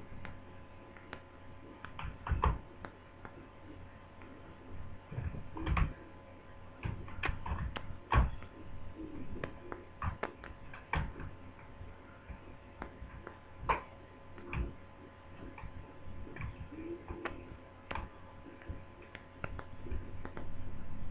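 Irregular clicks, taps and knocks of small hard parts being handled and fitted into a laptop's plastic casing during reassembly, over a faint steady hum.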